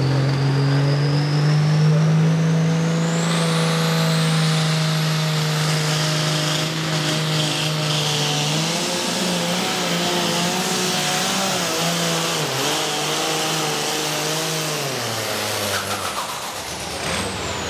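Turbocharged diesel pulling tractor at full throttle dragging a weight-transfer sled. The engine climbs in pitch over a rising turbo whine for the first few seconds, holds at high revs with a wavering pitch down the track, then drops off about fifteen seconds in as the turbo whine falls away, the end of the pull.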